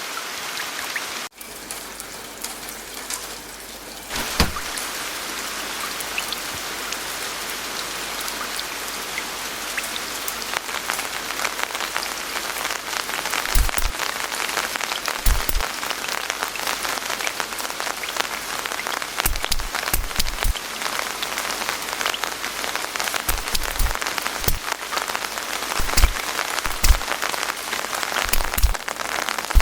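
Rain falling steadily, a dense patter of drops that slowly grows heavier. From about halfway on, scattered heavier drops land with low knocks.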